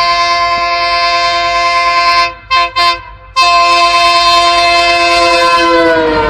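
Train horn sounding a long, loud chord, broken by two short toots about two and a half seconds in, then held again and dropping in pitch near the end as the train passes.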